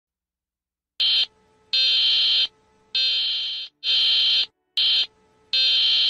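Emergency Alert System (EAS) style alarm: a loud, harsh electronic buzzing tone that starts about a second in and sounds in six on-off bursts, some short and some longer, with brief gaps between them.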